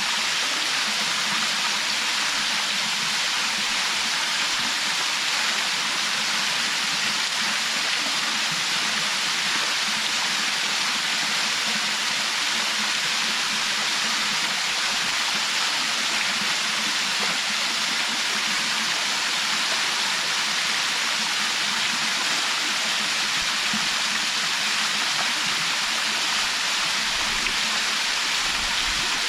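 Waterfall pouring steadily: a constant, even rush of falling water with no change across the whole stretch.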